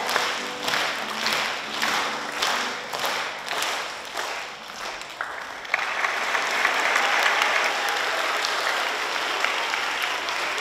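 Many people clapping in time, about two claps a second. About six seconds in, it breaks into full, continuous applause from an audience.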